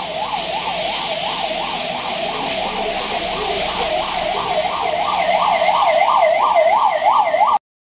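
Emergency vehicle siren in a fast up-and-down yelp, about three cycles a second, growing louder as it approaches, over the steady hiss of rain on a wet street. It cuts off suddenly just before the end.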